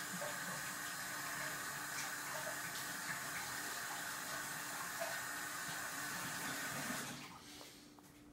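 Water running steadily from a tap off-camera, shut off about seven seconds in, leaving a faint low hum.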